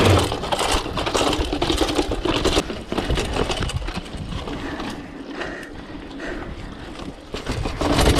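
Mountain bike clattering down stone steps: a rapid run of knocks and rattles as the tyres drop off step after step, louder for the first few seconds and softer after.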